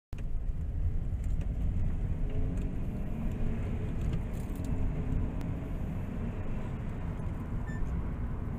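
Steady road and engine rumble heard inside the cabin of a Honda Civic Type S GT diesel at cruising speed.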